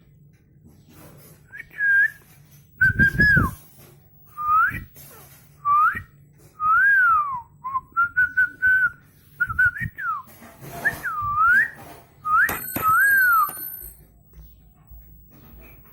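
A string of about a dozen short whistled notes, many gliding up or down or arching in pitch, with a loud thump about three seconds in and a few sharp clicks near the end.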